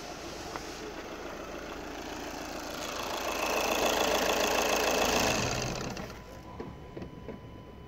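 VW 2.0 TDI CFFB four-cylinder common-rail diesel idling, growing louder for about two seconds midway and then settling back.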